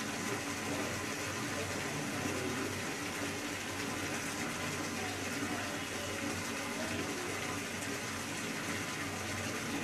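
Water pouring from a tap and splashing steadily into standing water.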